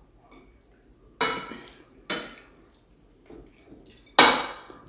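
Metal cutlery clinking against ceramic dinner plates: three sharp clatters, the last and loudest near the end.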